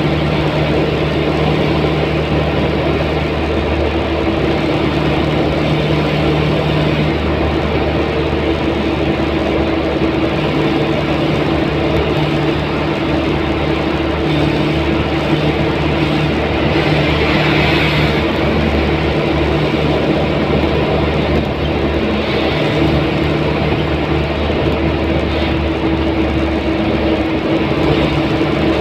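Vehicle cruising at expressway speed, heard from inside the cabin: a steady engine drone under continuous tyre and road noise. The hiss swells briefly about two-thirds of the way through.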